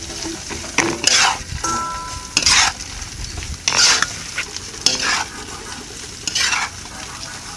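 A spatula sweeps and scrapes fried rice around a large frying pan in five strokes, about one every second and a bit, over the steady sizzle of the rice frying.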